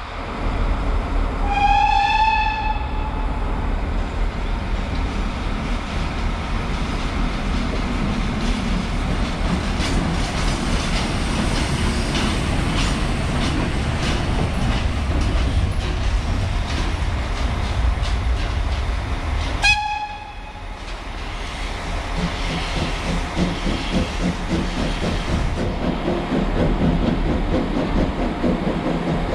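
Pt47 steam locomotive and its coaches rolling slowly past, a steady rumble with irregular clanks from the wheels and running gear. A short, high whistle blast sounds about two seconds in and again about twenty seconds in, after which the sound changes abruptly.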